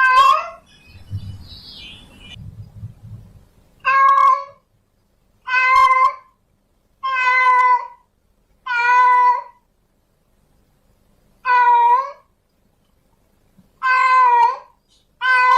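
Female domestic cat in heat calling for a mate: a string of about eight short, even meows, one every one to two seconds, with a longer pause after the first.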